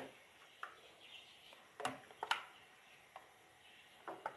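A quiet kitchen with a few short, sharp clicks and ticks at irregular intervals, the loudest pair about two seconds in, and faint bird chirping in the background.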